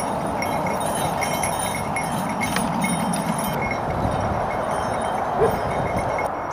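Rhythmic metallic jingling and clinking of a working horse's harness and chains, stopping a little past halfway, over a steady rushing background. A short squeak comes near the end.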